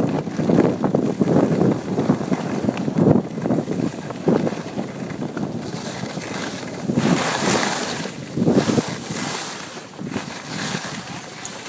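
Skis sliding and scraping over packed, groomed snow during a downhill run, with wind rushing over the microphone. Two louder hissing scrapes come about seven and eight and a half seconds in.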